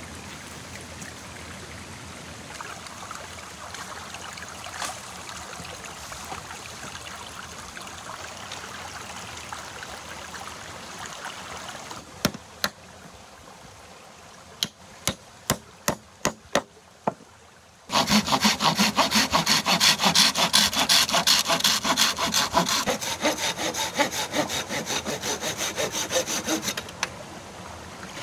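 Hand saw cutting wood with fast, even back-and-forth strokes, loud from about two-thirds of the way in and easing off near the end. Before the sawing there is a softer steady noise, then a string of sharp knocks.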